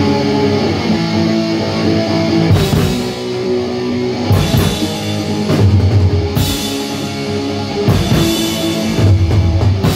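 Live rock band playing an instrumental passage: electric guitar chords over a drum kit, with cymbal crashes every second or two.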